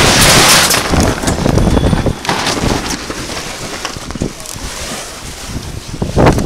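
Wind buffeting the microphone while the laminate jib flaps and brushes against it, a loud rush broken by sharp cracks. It is loudest in the first second, eases off in the middle and picks up again near the end.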